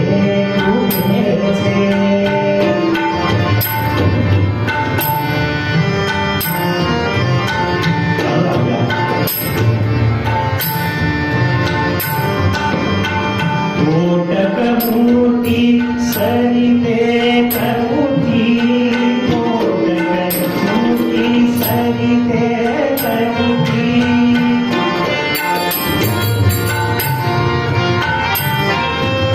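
Kirtan devotional singing with harmonium and tabla accompaniment, the tabla keeping a steady beat throughout. About halfway through, the melody settles into long held notes.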